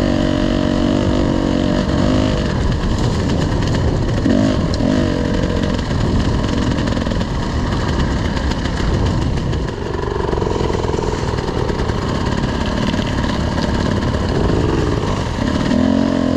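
Off-road dirt bike engine running as it is ridden along a slow, twisty woodland trail, its note rising and falling repeatedly as the throttle is worked.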